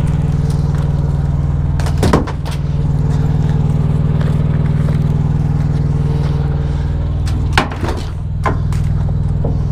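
Semi truck's diesel engine idling steadily. A few knocks and metal clanks come about two seconds in and again near the end, as gear is handled and a side toolbox is opened.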